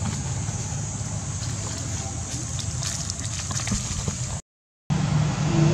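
Steady low rumble and hiss of outdoor background noise, broken by a half-second dropout to silence about four and a half seconds in, with a voice starting just at the end.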